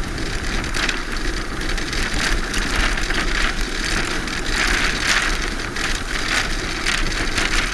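Land yacht running fast on hard sand: a steady rush of wind over the microphone mixed with the wheels rolling and rattling over the sand, swelling and fading.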